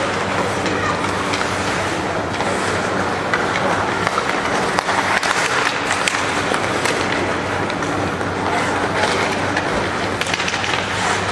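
Ice hockey play in an arena: skates scraping the ice and sharp clacks of sticks on the puck here and there, over a steady low hum.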